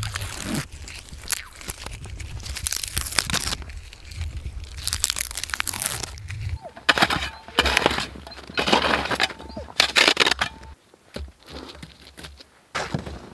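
Birch bark being torn and peeled off a birch trunk by hand, in a series of crackling rips. Near the end come the crunch and knock of dead sticks being gathered from the snow.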